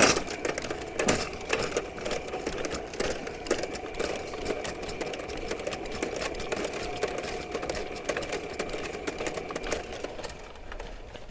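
Electric drum drain-cleaning machine running, its motor humming steadily while the snake cable spins and rattles in the sewer line with a fast, irregular clatter.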